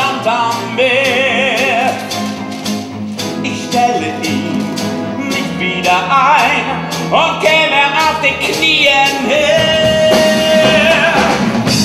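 Male voice singing with vibrato over a live orchestra in a musical-theatre number, with a brisk, regular beat.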